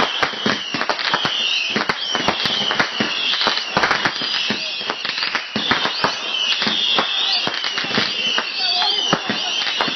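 Fireworks going off in a dense, continuous barrage of rapid bangs and crackles, with high sliding whistle-like tones over them.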